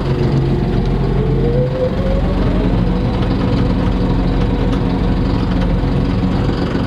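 Loader tractor's engine running steadily under way, heard from inside its cab, with a whine that rises in pitch over the first two seconds and then holds.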